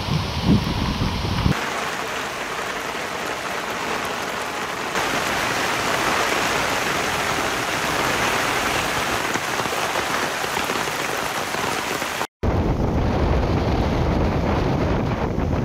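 Heavy typhoon rain with runoff water pouring and rushing, a steady loud hiss. After a brief drop-out near the end, gusting wind buffets the microphone over the rain.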